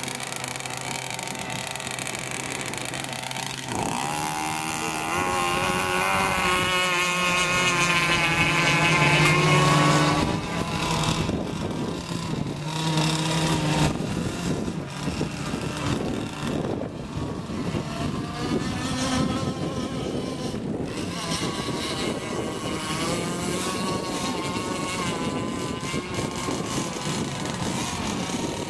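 Radio-controlled racing boat engine running at speed. Its pitch climbs over the first ten seconds, is loudest about ten seconds in, then keeps rising and falling as the boat races.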